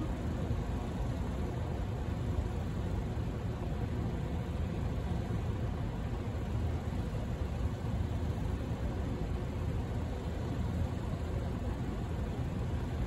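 Car idling in stopped traffic, heard from inside the cabin as a steady low rumble.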